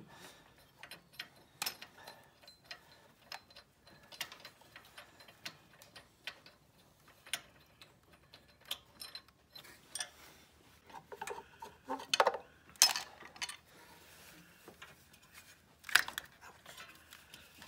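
Ratchet wrench clicking in short, irregular runs as the upper alternator mounting bolt is backed out, with a few sharper metal clicks in the second half.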